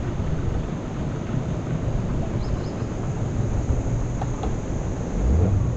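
A small boat's motor running under steady rushing water and wind noise on the microphone, the motor's pitch rising slightly near the end.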